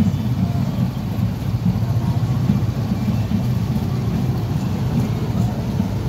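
Motorcycle engines running at low speed as motorcycle-and-sidecar tricycles roll past one after another, a steady low rumble with no break.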